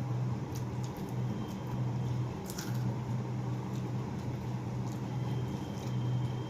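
Wet squishing and small clicks of rice and curry being mixed and eaten by hand, with chewing, over a steady low hum.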